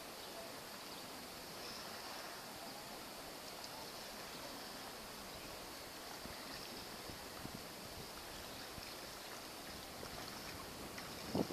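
Small sea waves lapping and sloshing close by, a faint, steady wash of water, with one louder splash right at the end.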